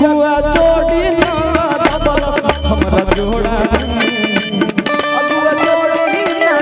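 Live band playing an instrumental break in a folk song: a held, bending melody line over a fast percussion beat, with the deep bass dropping out about four seconds in.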